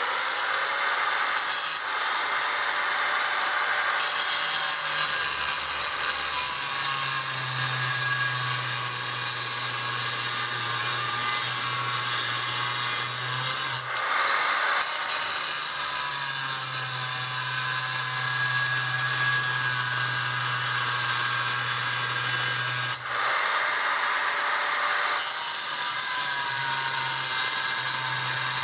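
Angle grinder grinding a calcite ammonite fossil: a loud, steady high whine, dipping briefly three times.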